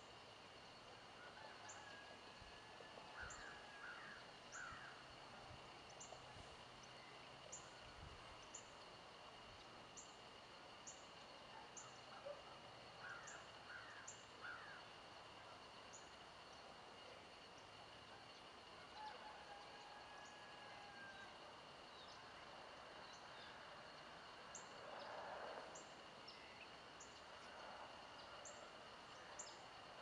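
Faint dawn ambience: a steady high insect drone, short very high chirps repeating about once a second, and scattered bird calls, including a couple of short whistles a little past the middle.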